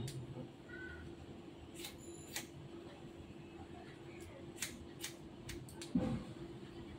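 Barber's scissors snipping hair, a handful of separate short, sharp snips spread out, over a faint steady hum.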